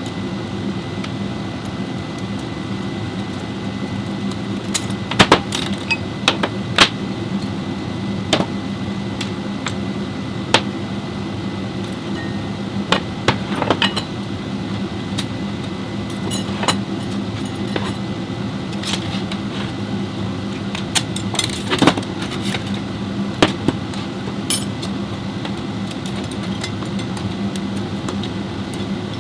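A steady mechanical hum with scattered metallic clinks and clanks of tools and parts being handled, heaviest about 5 to 7 seconds in and around 21 to 22 seconds.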